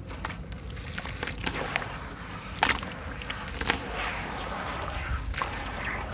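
Wet sand-cement lumps being crumbled and squeezed by hand in a basin of water: gritty crunching and crackling with scattered sharp snaps, two louder cracks near the middle, and wet squelching and splashing in the second half.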